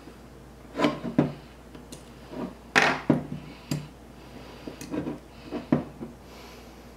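Beretta Pico pistol slide and small parts clicking and knocking as they are handled and fitted together by hand, about eight sharp clicks at irregular intervals, the loudest about three seconds in.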